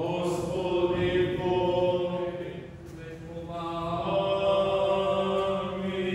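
Serbian Orthodox liturgical chanting during the wedding service: a voice singing long held notes in two phrases, with a short break about three seconds in, over a low steady hum.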